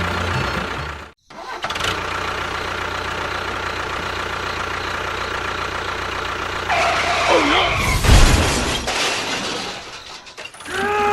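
Steady engine-like running noise that cuts out briefly about a second in. Later, sliding tones and a low thump are heard over it.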